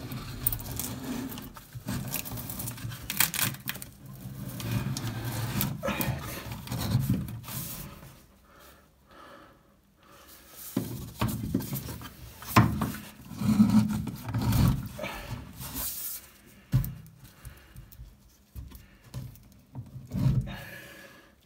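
Gloved hand rubbing and scraping against the underside of a shower tray while pressing silicone sealant into a crack, with irregular handling bumps.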